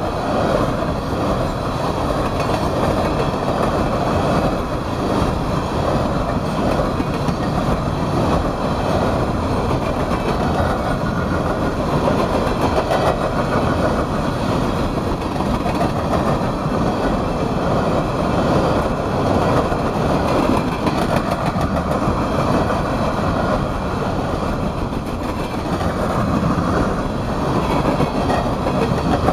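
Coal hopper cars of a CSX freight train rolling past, their steel wheels on the rails making a steady rumble that keeps on without a break.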